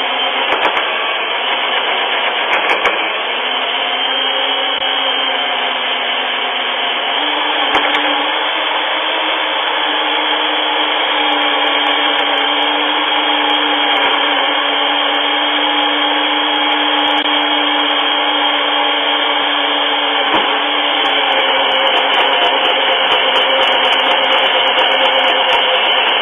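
A loud, steady whirring like a small electric motor running without a break, with a low hum that steps up slightly in pitch about seven seconds in.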